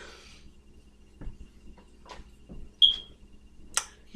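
Food-preparation handling sounds: a few light knocks and clicks, with a brief high squeak about three seconds in and a sharp click shortly after.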